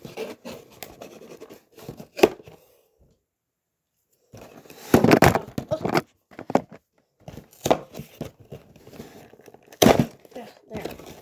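Cardboard Lego set box being torn open at its punch tabs: irregular tearing and scraping with sharp clicks, louder bursts about five seconds in and again near the end, and a second of dead silence in between.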